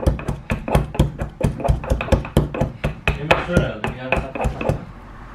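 Wooden pestle pounding garlic cloves in a wooden mortar, quick steady knocks about four a second, stopping shortly before the end.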